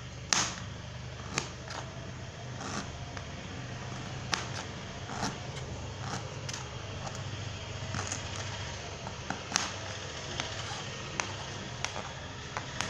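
A knife slicing through fresh ginger root: sharp taps come irregularly, roughly once a second, as each cut goes through, over a steady low hum.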